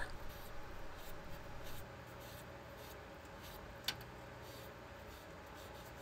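Faint rubbing strokes of a cloth wiping a gas furnace's flame sensor rod clean with acetone, a little louder in the first couple of seconds. A single short click about four seconds in.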